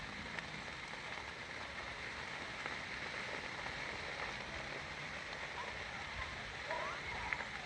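Brush fire burning in dry vegetation: a steady crackling hiss, with a few faint short pitched sounds near the end.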